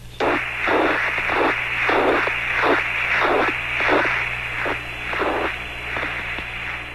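Radio static on a weak spacecraft-to-ground signal: a thin, telephone-like hiss that swells and fades about twice a second over a low steady hum.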